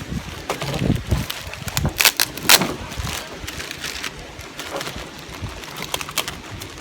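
Plastic packaging crinkling and rustling in irregular sharp crackles, with a few knocks, as a rain visor is unwrapped from its plastic and bubble wrap.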